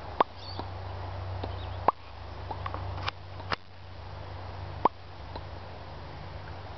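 Male Australian bustard booming in courtship display: a deep, steady low hum with a few sharp clicks over it.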